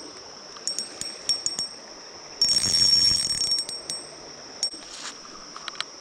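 Insects in the streamside woods keep up a steady high-pitched drone, with a few sharp ringing clicks early on and again near the end. About two and a half seconds in, a louder, noisy stretch lasting about a second rises over it.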